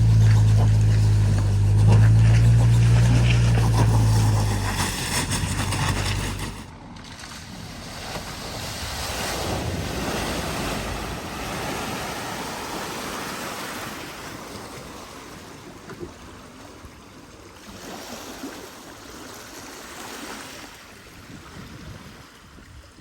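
A car engine running at steady low revs, which drops away sharply about six seconds in, leaving the steady rush of water at the ford with some wind on the microphone.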